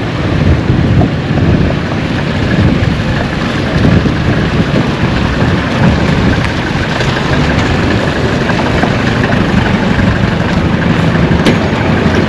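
Steady, loud road-traffic noise: motor vehicle engines running and idling, with no single event standing out.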